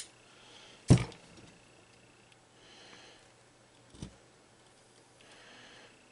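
Holt lever-action grease gun being handled: a sharp knock about a second in and a lighter knock about four seconds in, with three faint hisses between them.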